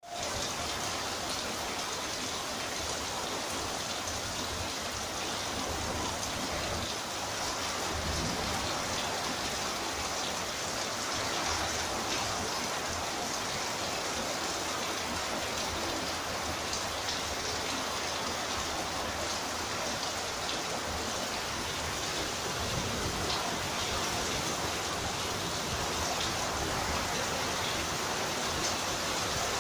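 Steady rain from a Kalbaishakhi (nor'wester) storm, falling and pattering on a surface with a constant rushing hiss, a little louder from about eight seconds in.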